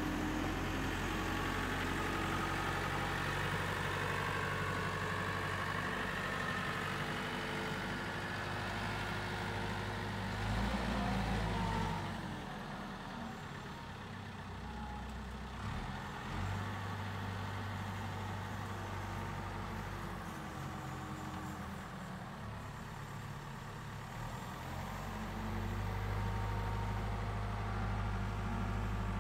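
Caterpillar IT14G wheel loader's diesel engine running as the machine drives, a steady engine drone that goes quieter for a stretch from about twelve seconds in and grows louder again near the end.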